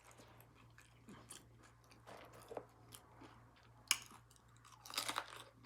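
Close-miked chewing with wet mouth smacks and clicks, a sharper click about four seconds in and a quick run of louder smacks near the end.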